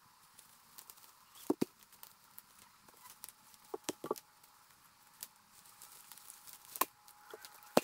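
Distant, scattered sharp snaps and cracks of dry sticks and brush being handled and stepped on, with footsteps on the leaf-littered forest floor. The louder cracks come about a second and a half in, in a cluster around four seconds, and near the end.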